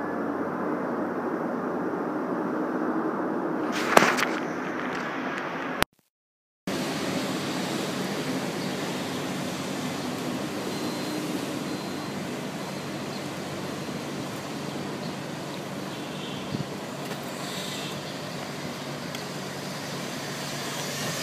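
City street traffic noise: cars idling in a stopped queue, heard as a steady hum of engines and street noise. There is one sharp knock about four seconds in, and the sound cuts out completely for under a second about six seconds in.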